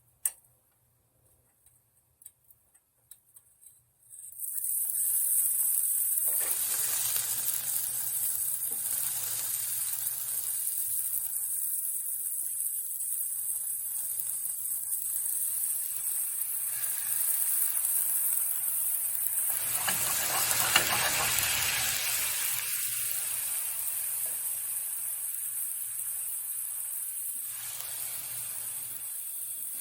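Chicken thighs sizzling in a frying pan. The sizzle starts about four seconds in, after a few light clicks, and grows louder for a moment about two-thirds of the way through.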